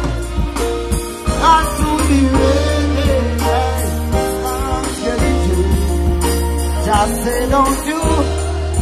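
Dancehall music played loud through a concert sound system: a deep sustained bass, a steady drum beat with a bright jingling top, and a singing voice over it.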